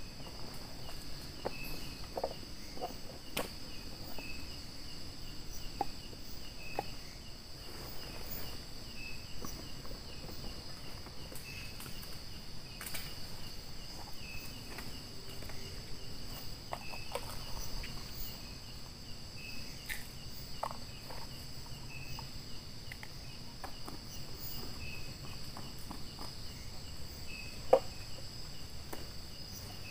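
Steady chorus of night insects such as crickets, a high even drone, with scattered light clicks and knocks and one sharper knock near the end.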